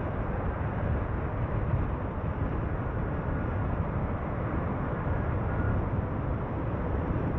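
A car being driven, with a steady low rumble of engine and tyre noise.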